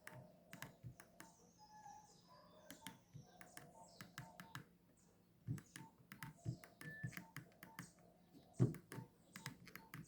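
Keypad buttons of a Nokia 1616 mobile phone being pressed to move through the ringtone menu: an irregular run of faint clicks and taps, with a couple of slightly louder knocks in the second half.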